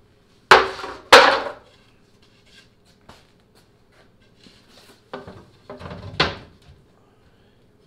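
Thin fibreboard panels knocking and clacking against each other and against a plywood console as they are handled and test-fitted: two sharp, loud knocks about half a second and a second in, then a cluster of knocks about five to six seconds in.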